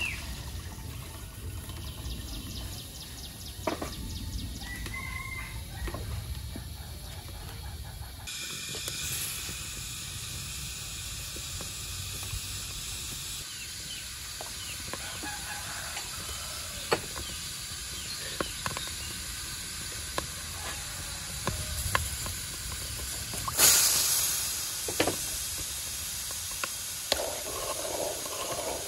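Cooking in a metal pot over a wood fire: coconut milk poured in, then a steady hiss with scattered light clicks and knocks as durian pieces are added and stirred with a wooden spoon. There is one louder knock about two-thirds of the way through, and a chicken calls faintly now and then.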